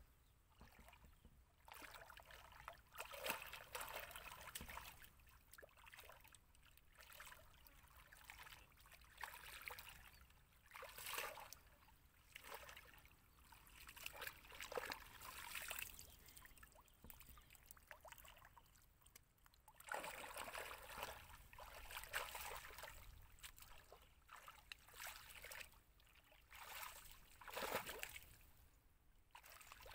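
Shallow muddy water stirred by hands and a plastic basket while groping for fish. Soft, irregular sloshing and trickling that swells and fades every second or two.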